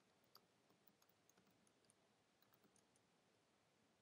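Faint computer keyboard typing: a scatter of soft key clicks over near silence, dying away about three seconds in.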